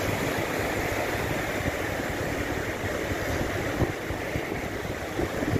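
Rough sea surf breaking and washing up a sandy beach, a steady rush. Wind buffets the microphone in a few low gusts in the second half.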